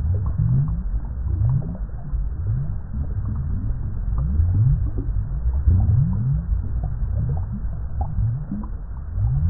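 Water bubbling: a continuous run of deep bubbles, each a short rising bloop, a few a second at an uneven pace, with small higher pops in between.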